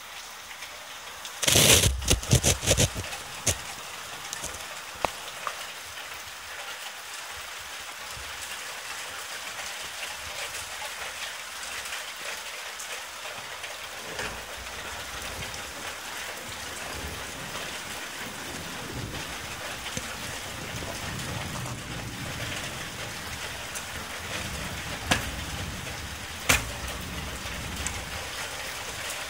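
Steady rain during a tropical thunderstorm, with a loud crackling thunder crack about a second and a half in. A low rumble builds through the second half, and there are two sharp clicks near the end.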